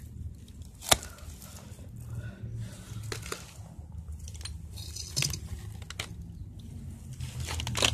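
Handling noise: one sharp click about a second in, then scattered faint clicks and rustles over a steady low rumble.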